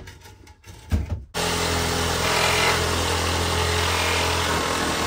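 A knock as the pallet is handled. Then, about a second and a half in, an Evolution 18V cordless reciprocating saw starts and runs at a steady speed, its blade cutting through the nails between a pallet board and its bearer to release the board.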